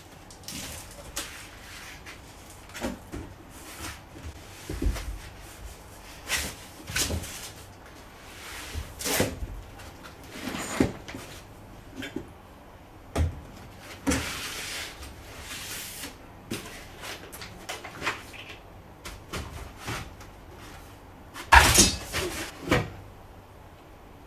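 Unpacking sounds: cardboard box flaps and foam packing being handled, with scattered knocks and rustles. A few louder knocks near the end as the 3D printer's metal frame is lifted out of the box.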